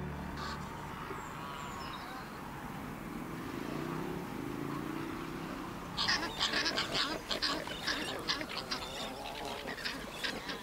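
A flock of Australian pelicans. After a quiet stretch with a faint low call, a busy run of short, irregular clattering and calling sounds starts about six seconds in.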